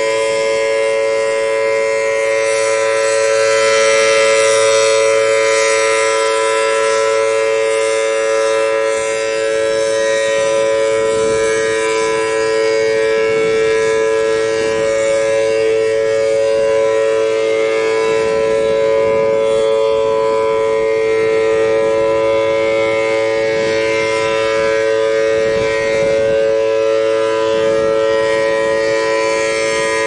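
Federal Signal Thunderbolt 1000T rotating outdoor warning siren sounding a steady tone at full pitch, the two-note chord of its 4/5-port chopper holding without rising or falling. The volume swells and eases as the horn turns, loudest a few seconds in, with gusts of wind rumbling on the microphone.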